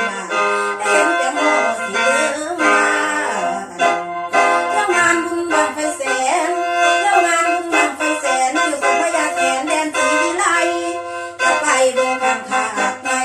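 Khaen, the Lao-Isan bamboo free-reed mouth organ, playing a lam toei interlude: a quick melody over held drone notes, with a low bass line underneath.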